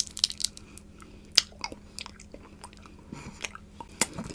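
Close mouth sounds of someone biting and crunching a small candy: irregular sharp clicks and crackles, the loudest about a second and a half in and again about four seconds in.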